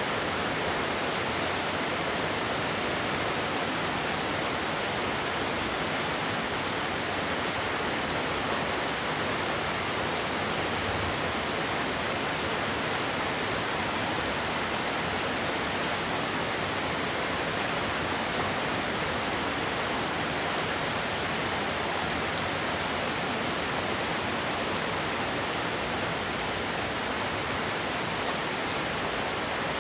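Steady rain falling, an even hiss with no change in strength.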